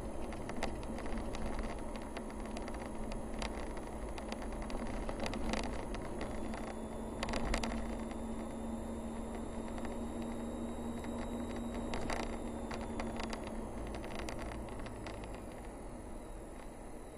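Car driving along a narrow paved road, recorded by a dashcam: steady engine and road noise with scattered sharp clicks and knocks. Through the middle, an engine hum holds one pitch for several seconds, and the sound gets a little quieter near the end.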